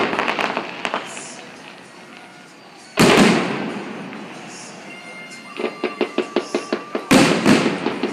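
Aerial firework shells bursting: a loud boom about three seconds in and another about seven seconds in, each trailing off in crackle. From about five and a half seconds a fast, even clicking, about four a second, runs alongside with a faint steady tone.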